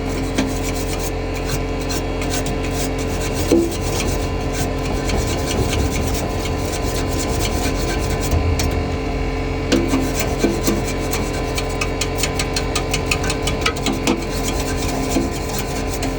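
A gas furnace blower wheel being scraped clean, many quick scratchy strokes over a steady hum.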